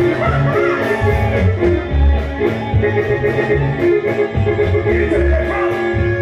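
Live regional Mexican band playing a corrido: an instrumental stretch between sung lines, with plucked guitar over a steady beat of low bass notes.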